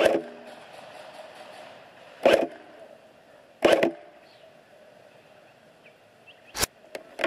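Airsoft rifle firing four single shots at uneven intervals, each a sharp crack, the first three with a brief metallic ring after them, with a couple of lighter clicks near the end.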